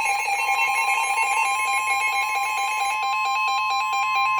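Emergency alert warning tones: a fast warbling alarm that switches rapidly between two pitches, joined about half a second in by a steady high alert tone, announcing a severe thunderstorm warning.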